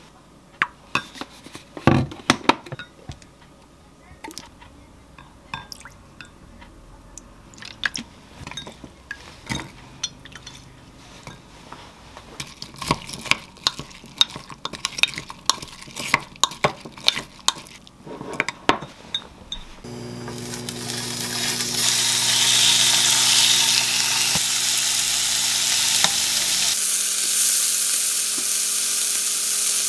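A spoon clicking and scraping against a glass mug as a soy-sauce dressing is stirred with chopped onion, in irregular clinks. About twenty seconds in this gives way to thin beef slices sizzling in a frying pan, a steady hiss that carries on.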